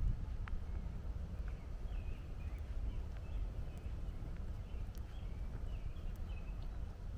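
A small bird chirping, a string of short high calls starting about two seconds in, over a steady low rumble of distant traffic, with footsteps on the trail.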